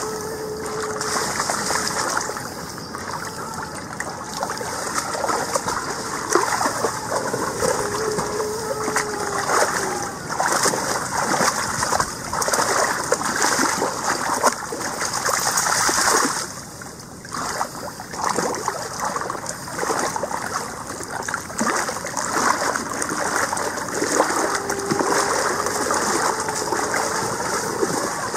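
Golden retrievers wading and paddling through a shallow river, the water splashing and sloshing around them in a steady run of splashes, with a short lull about two-thirds of the way through.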